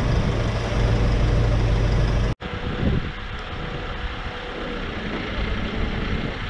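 Nissan NT400 Cabstar's diesel engine idling steadily, heard close up under the truck near the exhaust. About two seconds in the sound cuts abruptly to a quieter, more distant engine running with a faint steady whine.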